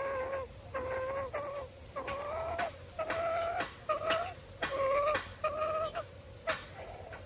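An animal calling over and over: about seven short, pitched calls of roughly half a second each, each wavering slightly in pitch, with short gaps between them.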